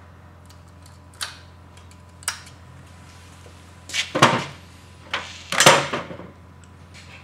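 Two light metallic clicks as a snap ring is worked into its groove on a locking hub, then louder knocks and clatter of metal parts being handled, the loudest near the end, over a steady low hum.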